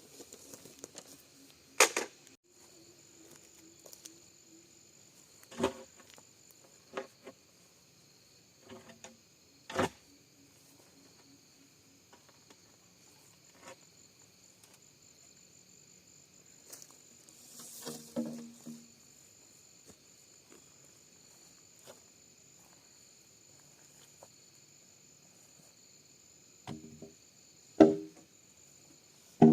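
Steady high insect trilling, crickets or similar, with scattered sharp knocks and taps; the loudest come about two seconds in and near the end.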